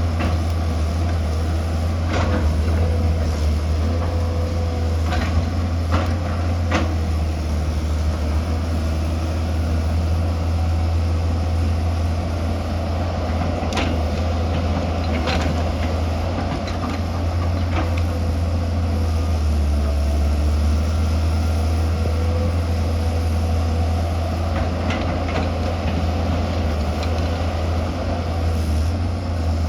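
Tata Hitachi excavator's diesel engine running steadily under work, with a dozen or so sharp knocks and clacks scattered through.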